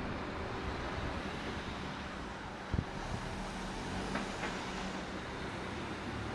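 A car passing on a town street, with steady engine and tyre noise. A single short, sharp knock comes about three seconds in.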